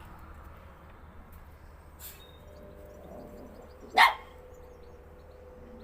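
A dog gives one short, loud bark about four seconds in.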